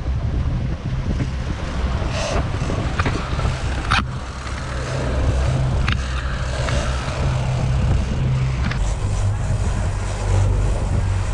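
Boat engines running steadily at a low, even hum, with a few sharp clicks or knocks on deck, the clearest about four seconds in.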